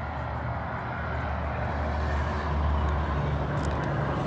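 Steady low hum of a motor vehicle engine running, swelling a little in the middle, with a few faint ticks near the end.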